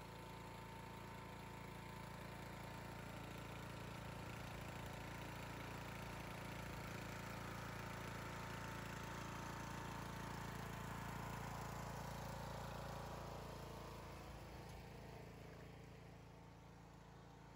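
Troy-Bilt riding lawn mower engine running steadily as the mower drives up and passes close by, growing louder to a peak a little past the middle and then fading away near the end.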